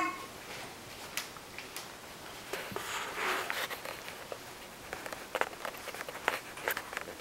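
Faint rustling of a cotton sheet and light scattered taps as a baby crawls across it, with a short rustly stretch about three seconds in.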